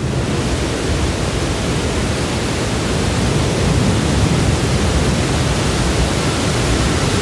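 Waterfall rushing steadily: an even, unbroken wash of water noise with no tone or rhythm in it.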